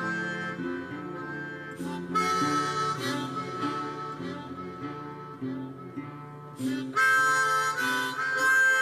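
Background music: harmonica over acoustic guitar. The harmonica plays phrases of held notes, loudest about two seconds in and again from about seven seconds in.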